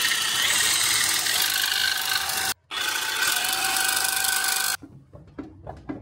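Reciprocating saw cutting through a steel gearbox nut that spun instead of coming undone, running in two long bursts with a brief stop about two and a half seconds in. After that come a few light metal clinks.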